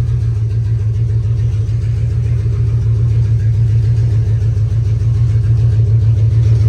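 Box truck engine running with a steady low drone, very loud because its catalytic converter has been stolen and the exhaust runs open. The sound grows slightly louder toward the end.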